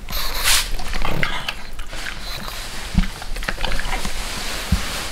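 Pugs snorting and snuffling as a Santa costume is handled on them, with fabric rustling and two low knocks about three and four and a half seconds in.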